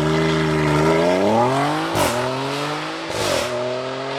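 Turbocharged car engine revving up. Each time the throttle is let off, about two seconds in and again a second later, comes a burst of turbo flutter, a hissing chatter of air backing up through the turbo's compressor. The engine then settles to a lower, steadier note.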